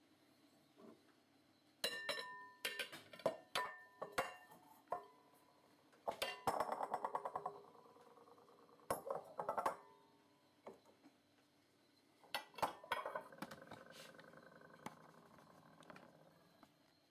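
Pyrex Classic glass mixing bowls clinking against each other as smaller bowls are nested into larger ones. Several sharp ringing clinks come a couple of seconds in, then bursts of rapid glass-on-glass rattling about six seconds in, again around nine seconds, and once more near the end.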